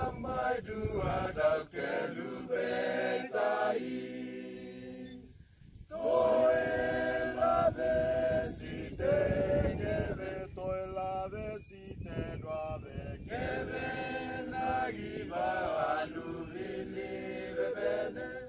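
A group of men singing a cappella together in harmony, in held sung notes, with a short break about five and a half seconds in.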